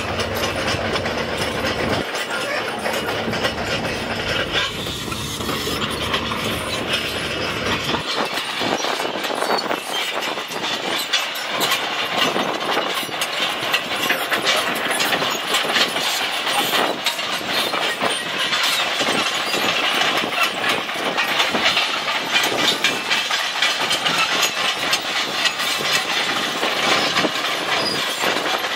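Heavy machinery working: a dump truck's diesel engine runs for the first several seconds, then a Caterpillar 320C tracked excavator's diesel engine runs under a steady rattling clatter of its steel tracks. The deep low end drops away about eight seconds in, where the sound changes to the excavator.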